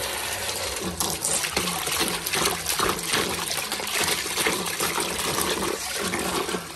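Water gushing and splashing steadily as a submerged Nidec brushless 18–24 V pump throws a strong jet from its outlet pipe back into a plastic basin.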